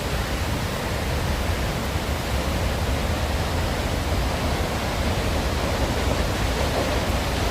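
Steady rushing of the Multnomah Falls waterfall: an even noise without breaks, with a strong low rumble underneath.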